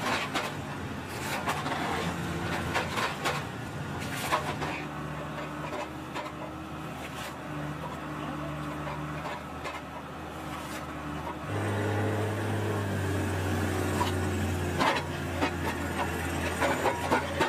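Tractor engine and hydraulic crane running a NAARVA S23 shear felling head, a steady drone whose pitch shifts a few times and steps up noticeably about two thirds of the way through as the hydraulics take load. Scattered sharp cracks and snaps of wood as the blade shears through small birch stems and branches.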